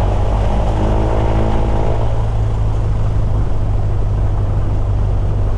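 Cessna 172's piston engine running steadily at low taxi power, a constant low drone.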